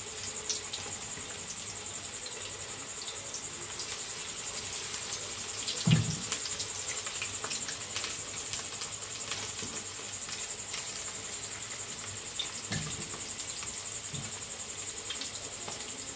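Chicken pakoras deep-frying in hot oil in a karahi: a steady sizzle with fine crackling. Over it runs a steady high-pitched trill, and there are a couple of brief low knocks.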